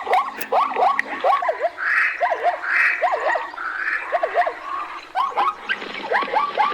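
Many animals calling over one another: short, swooping chirp-like calls repeating several times a second, with a few harsher, noisier calls in the middle.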